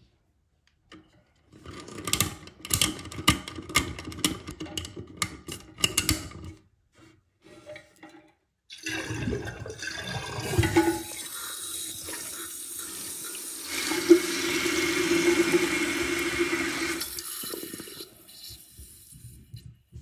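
A few seconds of clicking and rattling, then a toilet flushing. Water rushes as the tank drains and refills through the fill valve, with a steady hum that swells near the end and then stops as the fill shuts off.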